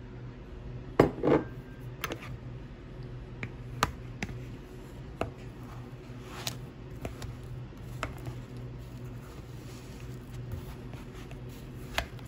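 A metal fork mashing ripe bananas in a bowl, clinking and knocking against the bowl in scattered strikes. The loudest knocks come about a second in, with another sharp one near the end.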